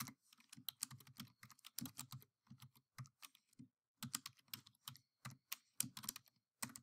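Faint typing on a computer keyboard: irregular runs of quick keystrokes, with a short pause a little past halfway.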